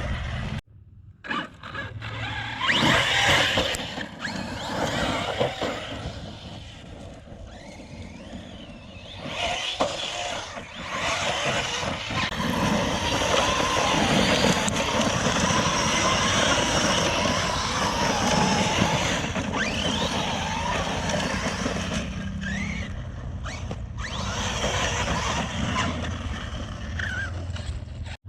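A 6S electric RC car running hard over rough ground: a steady rush of tyre and wind noise that swells and fades, with short rising whines from the motor as it accelerates. There is a brief drop to near silence about half a second in.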